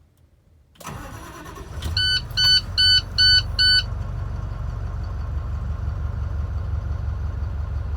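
MaxxForce 6.4L V8 diesel in an International 4300 truck cranking briefly and starting, then settling into a steady idle. Just after it catches, five short, loud beeps sound from the truck's cab warning chime.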